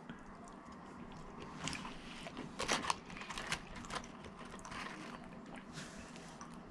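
A man chewing a mouthful of french fries dipped in honey mustard: faint, irregular clicks and crunches of chewing, busiest in the middle.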